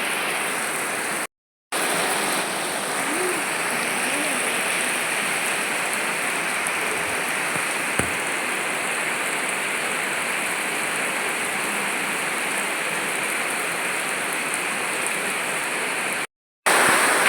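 Steady rain falling, an even hiss throughout, cut by two brief drops to silence, one about a second in and one near the end.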